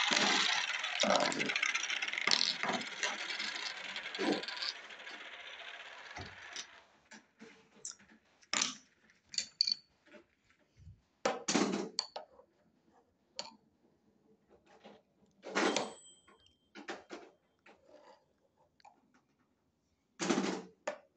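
Wooden toy pieces clattering and knocking as a child handles them. The rattling is dense at first and thins out over about six seconds, leaving scattered single knocks and clicks.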